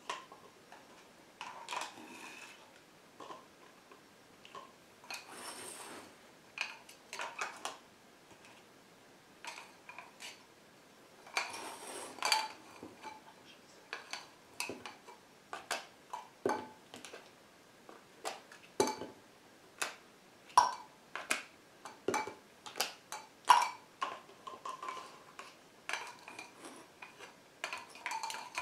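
Small plastic cups being handled on carpet: picked up, knocked against each other and set down, giving a run of irregular light clacks and clinks.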